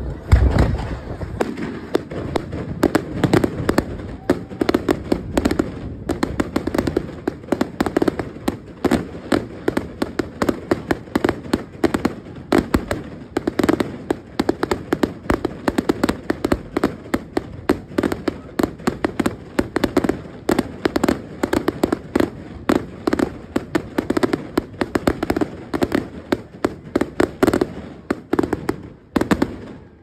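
Fireworks going off in a rapid, continuous barrage of sharp bangs and crackles, several a second, with a heavy low boom just after the start.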